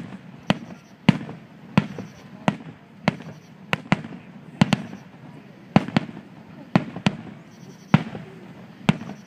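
Fireworks going off in a quick, irregular string of sharp bangs, one to two a second, each with a short echoing tail.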